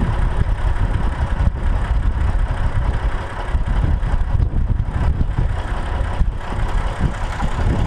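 Massey Ferguson 135 tractor engine running steadily, a continuous low rumble.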